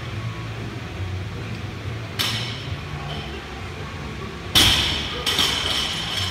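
Loaded barbell with iron plates clanking once about two seconds in, then dropped from overhead onto the rubber floor: a loud crash a little past the middle, a bounce just after, and the plates ringing on the sleeves.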